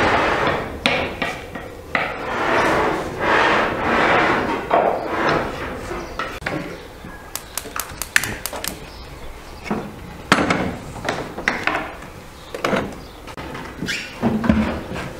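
Knife chopping onion on a wooden cutting board: a run of quick, sharp knocks.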